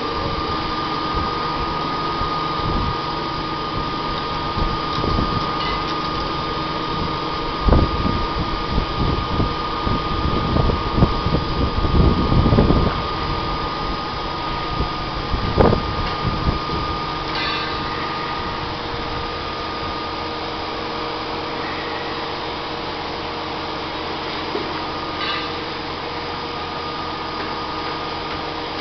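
Steady mechanical drone with a held high whine from a hi-rail truck's engine and National Crane 1300-D hydraulics as the boom raises an aerial basket. Irregular gusts of low rumble hit the microphone through the middle.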